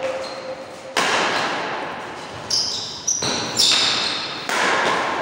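Badminton rackets hitting a shuttlecock in a fast rally: about five sharp cracks, roughly half a second to a second and a half apart, each ringing out in a large echoing hall. Short high squeaks come between the hits.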